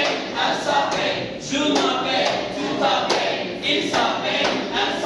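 A class of students' voices reciting a French verb conjugation together in chorus, in a rhythmic, chant-like rise and fall.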